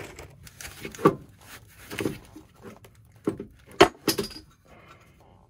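Scattered clinks and knocks of loose bolts and hardware being handled and fitted to a running-board bracket, with a sharp knock a little under four seconds in.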